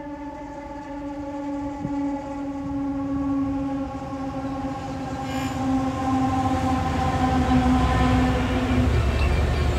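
Freightliner Class 70 and Class 66 diesel locomotives heading a loaded freight train as they approach and pass close by. A steady droning tone from the locomotives falls slightly in pitch and stops about nine seconds in, while the low rumble of engines and wheels on rail grows louder from about halfway and is loudest near the end.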